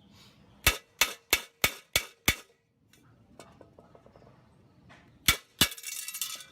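Hammer blows driving a nail into the wall of a metal tank to punch a hole: six sharp metallic strikes in quick succession, about three a second, then after a pause two more, followed by a brief rattling scrape near the end.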